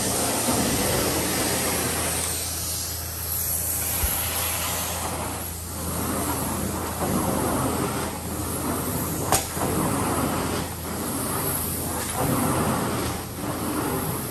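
Carpet-cleaning extraction machine running, with a steady low hum under a loud rushing hiss of suction and spray that dips every second or two as the wand is worked across the carpet. A single sharp click sounds about nine seconds in.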